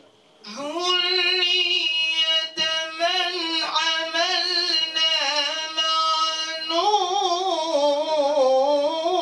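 A young man's solo voice reciting the Quran in the melodic tajwid style into a handheld microphone. He draws out long held notes with wavering ornaments, starting about half a second in, with one brief break for breath partway through.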